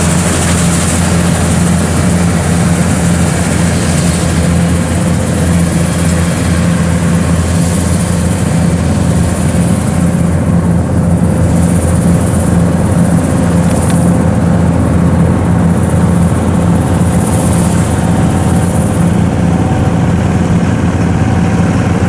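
Kubota rice combine harvester running steadily while cutting and threshing rice, its diesel engine giving a constant low hum.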